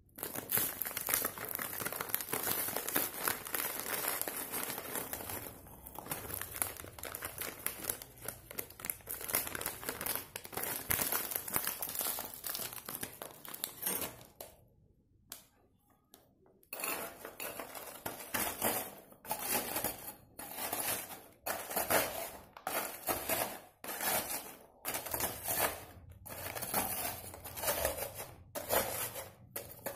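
Round biscuits poured from their packet into a plastic bowl, a continuous rattling clatter with packet crinkling. After a short silence about halfway through, the biscuits are crushed in the bowl with the base of a small ceramic cup: a crunching, clinking stroke about once a second.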